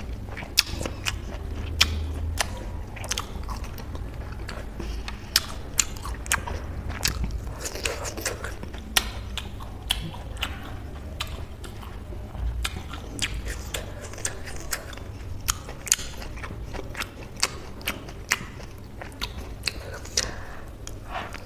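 Close-miked wet chewing of juicy peeled orange segments, with frequent sharp mouth clicks and smacks.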